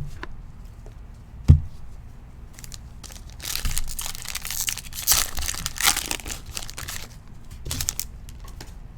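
Wrapper of a Prizm Football trading card pack being torn open and crinkled, from about three and a half to seven seconds in, with a short knock before it and a softer one after.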